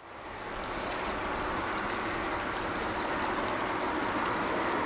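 Distant jet engine noise of an Airbus A330-200 on final approach: a steady rushing hiss that fades in at the start and slowly grows louder as the airliner comes nearer.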